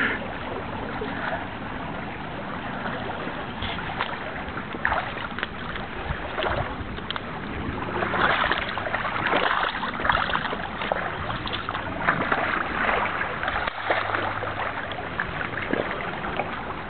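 Shallow creek water running around a wading angler, with repeated splashing as a hooked steelhead thrashes at the surface. The splashing is heaviest around the middle.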